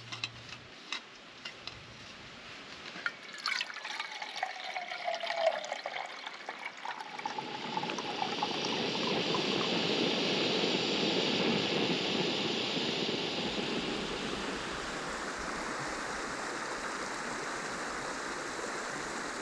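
Clicks and rattles of a Jetboil stove cup being fitted together and set on its fuel canister. From about seven seconds in the canister stove's burner hisses steadily, easing a little after about fourteen seconds.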